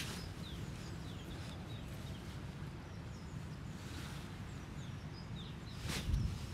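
Outdoor lakeside ambience: a steady low rumble with small birds chirping faintly throughout. About six seconds in comes a brief knock and low thump as the angler stands up on the wooden peg to throw a ball of groundbait.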